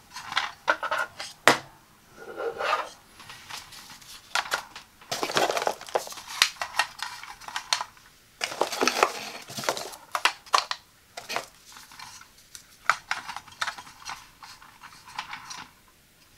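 Hard plastic clicking and clattering as a coffee pod carousel loaded with single-serve coffee pods is handled and turned, with a couple of longer rattling stretches among the separate clicks.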